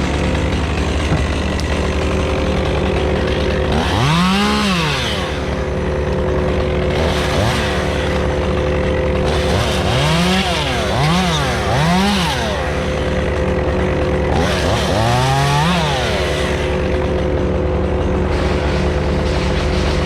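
Stihl chainsaw running at idle and blipped up to high revs several times, each rev rising and falling back within about a second, over a steady engine hum.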